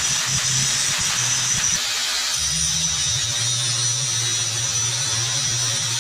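Angle grinder grinding a steel tube for about two seconds, then a vertical bandsaw cutting steel plate, its motor humming steadily under a high blade whine.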